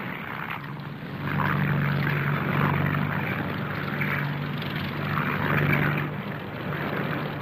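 Propeller aircraft engines droning steadily, growing louder about a second in and easing near the end.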